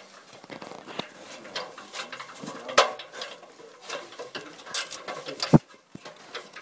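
Clanks, knocks and scuffs of someone climbing a metal ladder, with two sharper knocks about halfway through and near the end.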